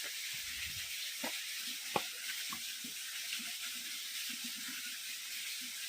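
A steady high hiss with a few light knocks and one sharp click about two seconds in, like shoes scuffing and tapping on bare rock during a careful climb.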